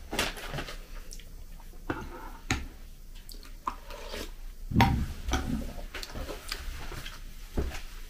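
A spoon clinks against a ceramic bowl while cereal flakes in milk are chewed, with scattered light clicks and a heavier knock about five seconds in.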